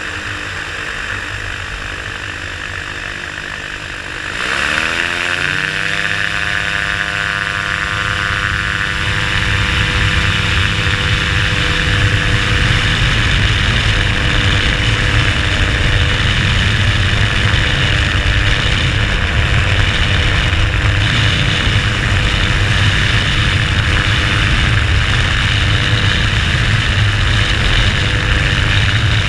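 Microlight trike's engine and propeller running at low power, then opened to full throttle about four seconds in for take-off. The note sweeps up over a couple of seconds and settles into a loud, steady full-power run, with rushing wind noise through the take-off roll and climb-out.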